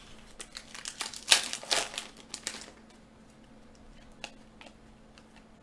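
A stack of glossy hockey trading cards being flipped through by hand: a quick run of rustling and sliding strokes of card against card over the first two and a half seconds, then a few faint clicks.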